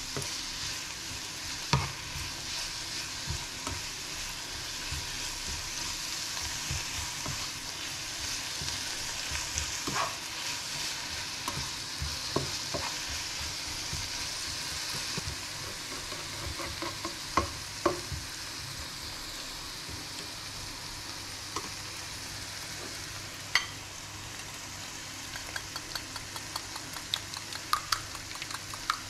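Spinach sizzling steadily in a hot frying pan as it wilts, stirred with a spatula that knocks against the pan now and then. Near the end there is a run of quick clinks from a whisk in a bowl of beaten eggs.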